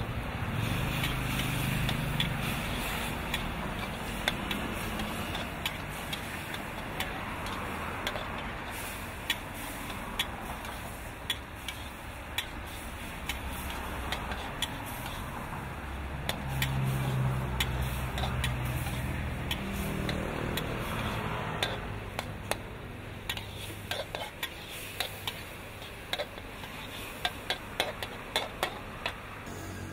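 Metal wok spatula scraping and clinking against a steel wok while basil and pork are stir-fried over a steady sizzle. The sharp clinks come thick and fast in the second half.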